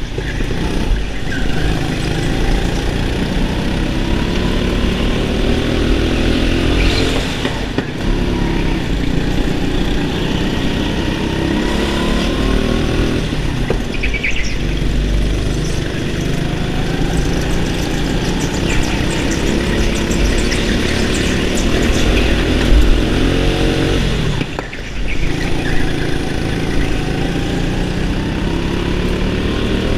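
Go-kart engine heard from onboard, its pitch climbing again and again as the kart accelerates, then dropping briefly when the driver lifts off for a corner, about four times.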